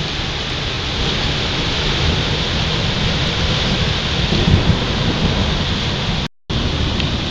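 Heavy rain pouring down in a violent thunderstorm: a steady, dense hiss with a low rumble under it. The sound drops out for a moment about six seconds in.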